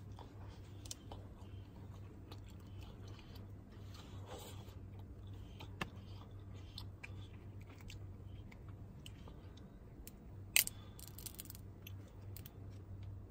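Boiled crab legs being shelled and eaten by hand: scattered small crackles and clicks of shell, with chewing. One sharper snap comes about ten and a half seconds in.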